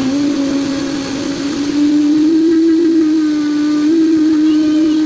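Vitamix blender motor running steadily, blending a smoothie while the tamper is pushed down into the jar. The whine rises slightly in pitch about two seconds in.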